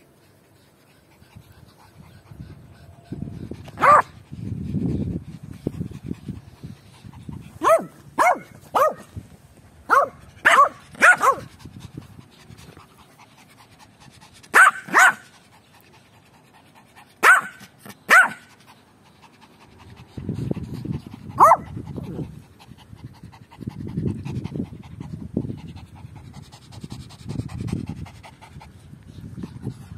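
Puppies playing: about a dozen short, sharp, high yips, often in quick pairs or clusters, with stretches of lower rumbling noise and panting between them.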